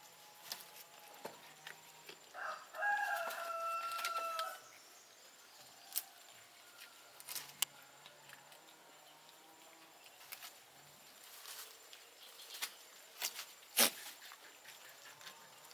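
A rooster crows once, a call of about two seconds, set among scattered faint clicks and rustles.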